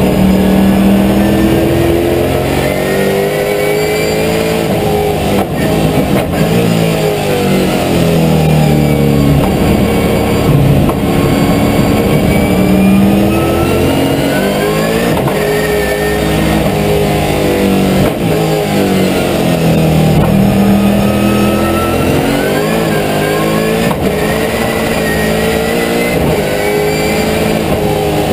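Holden V8 Supercar's V8 race engine heard from inside the cockpit, revving up and down as the car accelerates and slows through the corners: the pitch climbs and drops back again and again through gear changes.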